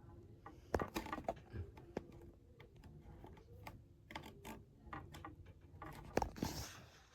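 Scattered light clicks and taps at an irregular pace, a few louder ones about a second in and near the end, over a faint steady low hum.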